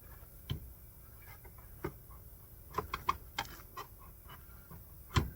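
Scattered knocks and clunks from a rear strut assembly being worked up into the wheel well past the plastic splash shield. There is a quick run of clicks about three seconds in and the loudest knock near the end.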